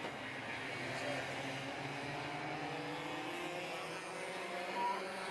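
Several Mini-class racing karts' small two-stroke engines buzzing around the circuit, their pitches rising and falling as the karts accelerate and lift through the corners.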